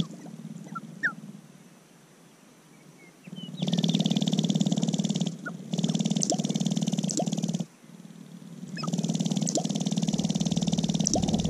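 Sharp-tailed grouse dancing on the lek: a rapid rattling buzz from stamping feet and rattling tail feathers. It comes in two stretches of several seconds, the first briefly broken near the middle, after a quieter start with a few short high calls.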